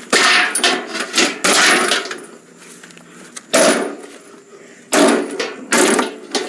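A lawnmower being smashed: a series of heavy, irregularly spaced crashing blows on it, about five loud ones with smaller knocks between.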